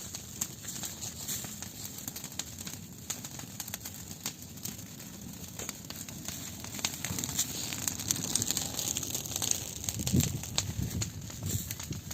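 Wood campfire burning well and crackling, with many small sharp pops and snaps scattered over a steady hiss.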